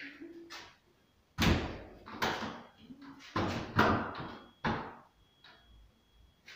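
White-framed glass door being pushed shut and worked: about five loud bangs and rattles in a row, each ringing on in the bare room, with a few lighter knocks before and after.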